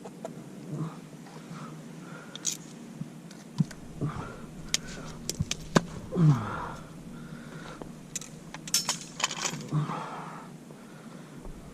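Handling noises: a series of sharp clicks, clinks and knocks, with a short falling squeak about six seconds in.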